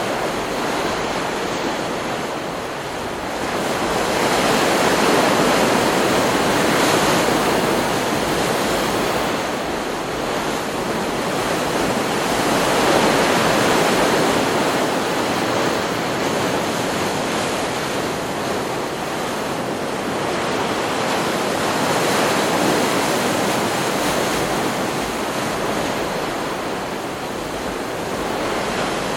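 Ocean surf from a stock beach recording: a continuous wash of waves that swells louder as breakers come in, about four seconds in and again about twelve seconds in, with a smaller swell later.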